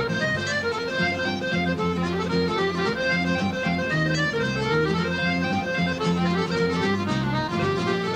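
Piano accordion and Northumbrian smallpipes playing a traditional tune together, the accordion leading with a quick run of notes over bass notes.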